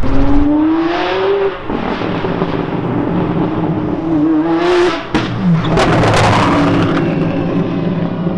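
A supercar engine accelerating: its note climbs steeply, drops at a gear change about a second and a half in, then climbs again more slowly. Around five seconds there is a sharp crack at another shift, a short burst of noisy exhaust, and then the engine settles into a lower, steadier note as the car pulls away.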